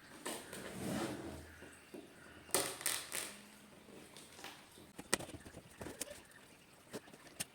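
Irregular rustling and a few sharp clicks and taps, the noise of things being handled.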